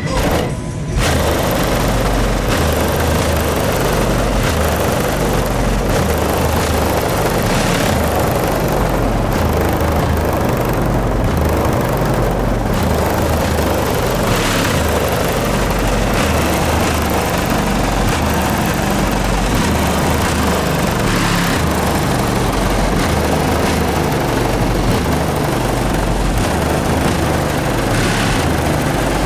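A car stereo's trunk-mounted subwoofers playing bass-heavy music very loud: deep bass notes step up and down in a repeating pattern, the kind of output meant to make the trunk lid shake.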